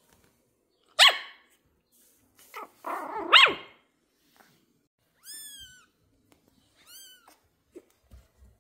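Pomeranian puppy barking with excitement: one sharp bark about a second in, then a louder run of barks around three seconds in. Two fainter, high cries that rise and then fall follow later.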